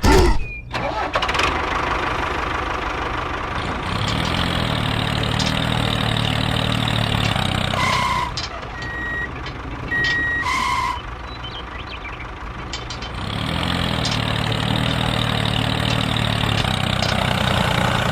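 Mini tractor engine running, working harder with a rising note from about four seconds in and again near the end. Two short beeps sound midway, about two and a half seconds apart.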